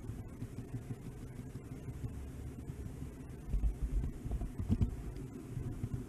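Low rumble of a model train rolling along its track, picked up by a camera riding on the train, with a few heavier low bumps about three and a half to five seconds in.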